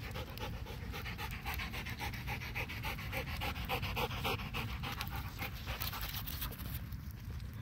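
A dog panting rapidly in a steady rhythm, close by, which fades out about seven seconds in.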